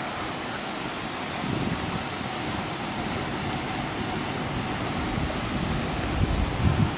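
Wind blowing across the camera microphone: a steady hiss with irregular low rumbling gusts, strongest about a second and a half in and again near the end.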